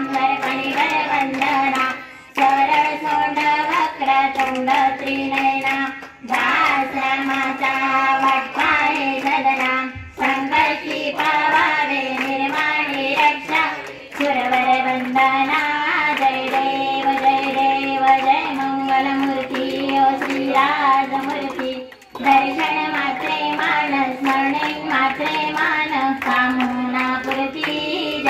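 A group singing a Marathi devotional aarti in phrases a few seconds long, with hands clapping steadily in time and held notes sounding underneath.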